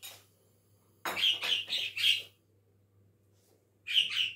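Pet bird chirping: a quick run of about four high chirps about a second in, then two more near the end.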